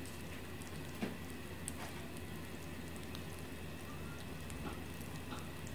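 Freshly roasted peanuts ticking and crackling as they cool on newspaper: small, irregular pops, one a little sharper about a second in, over a low steady hum.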